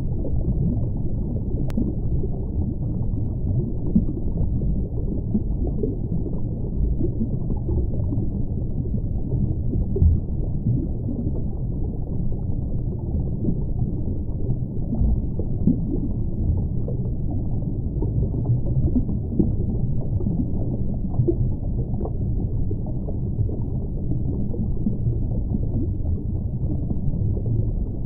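Underwater ambience: a steady low rumble and wash of moving water heard through a submerged microphone, with small irregular swells, including one about ten seconds in.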